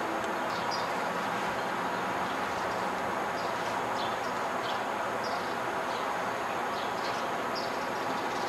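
Steady outdoor rumble of distant heavy machinery and city traffic, with short high chirps scattered through it.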